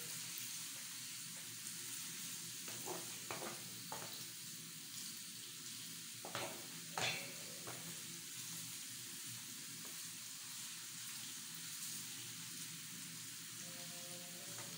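Sliced onions and grated carrots frying in oil in a metal pan with a steady sizzle, while a wooden spoon stirs them, knocking and scraping against the pan a few times.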